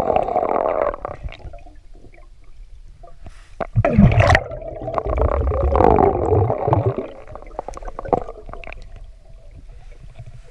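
A diver's exhaled breath bubbling underwater: a short burst of bubbles at the start and a louder one about four seconds in lasting some three seconds, with faint ticks between.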